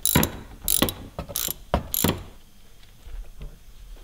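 Ratchet wrench clicking in about five short strokes on a bolt under the car, stopping about two seconds in.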